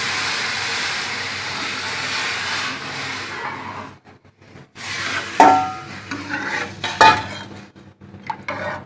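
Water poured into a hot steel kadai of ghee-fried potatoes and onions, hissing and sizzling loudly for about three and a half seconds before dying away. Then a metal ladle stirs and knocks against the steel pan, with two sharp ringing clinks.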